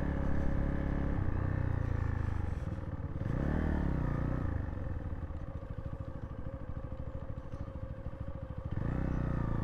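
Zontes T2 350's single-cylinder engine running at low speed on a trail. It drops off, gives a brief rev a few seconds in, then runs for several seconds at a slow, pulsing low rpm before picking up again near the end.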